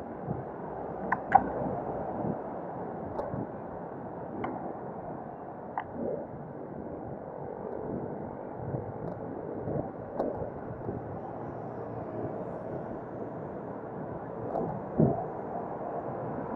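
Muffled rumble of wind buffeting the microphone of a camera riding along on a bicycle. A few sharp clicks break through, the loudest about a second in, and there is a heavier knock near the end.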